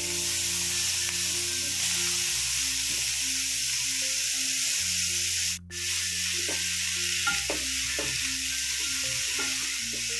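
Chopped fenugreek leaves sizzling in melted butter in a frying pan as they are stirred with a wooden spatula; the sizzle cuts out for a moment about halfway through.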